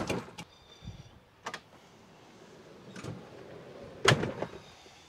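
Metal TubMate mini slider loaded with a stack of Milwaukee PACKOUT boxes being slid along its rollers, with several clicks and knocks and a low rolling rumble, ending in a loud clunk about four seconds in as it comes to a stop.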